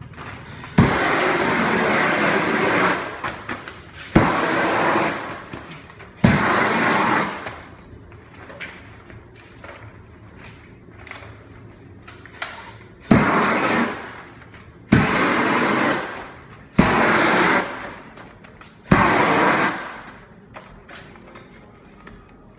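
An 18,000 BTU propane shrink-wrap heat gun fired in seven short bursts, each starting with a sharp pop and followed by a rush of flame lasting one to two seconds, as it heats and welds the polyethylene shrink wrap.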